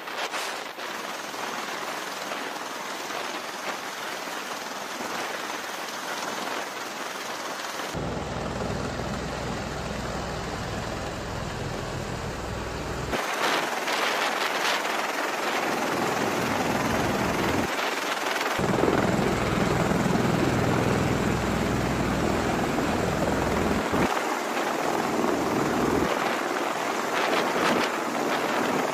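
Military rotorcraft on a ship's flight deck: an attack helicopter lifting off, then an MV-22 Osprey tiltrotor coming in to land. It is a steady rush of rotor and turbine noise, cut off abruptly several times and louder in the second half.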